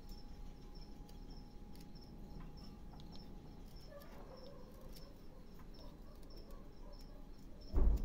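A cricket chirping in an even, steady rhythm over the faint scrapes and clicks of a small knife cutting wood. A loud low thump comes near the end.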